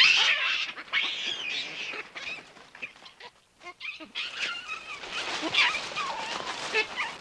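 Birds calling: many short, overlapping chirps and calls, with a lull about three seconds in.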